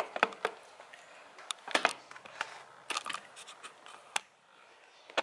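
Handling noise of a camera being put down on a stovetop: a series of sharp clicks and knocks, dying away about four seconds in, with one last click near the end.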